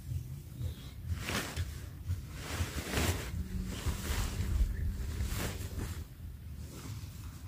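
Nylon tent fabric rustling and swishing in several sweeps as it is spread out and lifted, over a low wind rumble on the microphone.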